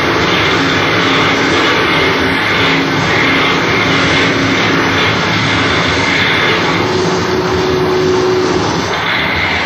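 Harsh noise from a live noise-music performance: a loud, unbroken roar of noise with a faint held tone underneath, and a higher held tone rising out of it for a second or two about seven seconds in.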